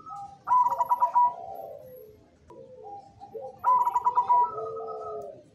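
Zebra dove (perkutut) singing its cooing song twice, each phrase opening with a quick stuttering run of notes and trailing off into longer, lower coos.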